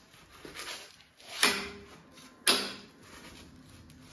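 Click-type torque wrench on the crankshaft pulley bolt, set to 400 N·m, giving two sharp clicks about a second apart, each with a brief metallic ring through the wrench and its steel extension pipe. The clicks mean the set torque has been reached.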